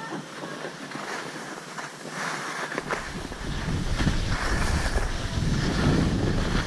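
Wind buffeting a helmet camera's microphone and skis hissing over packed snow on a downhill run. The low rumble and overall level grow about three seconds in as speed picks up.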